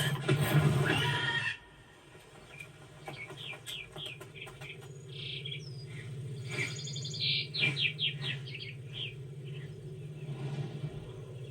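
Bird chirping: after a loud noise cuts off suddenly about a second and a half in, runs of short, quick, high chirps follow, thickest around the middle, over a faint steady hum.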